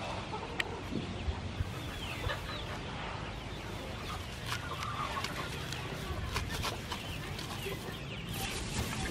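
Chickens clucking, with short crackles and rustles of lemongrass leaves being handled.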